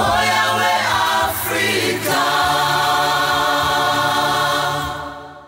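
Voices singing in chorus: a short gliding phrase, then one long held chord that fades out near the end.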